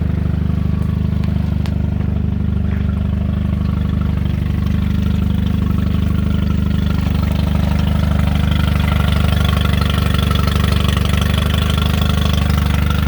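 Small carbureted outboard motor idling steadily in neutral, run out of the water on a hose-fed water supply for cooling.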